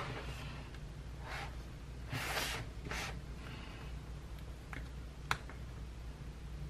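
Soft rustles and scrapes of fingertips on paper as a planner sticker is lifted and pressed back down on a spiral-bound planner page, with one small sharp tick a little past five seconds in.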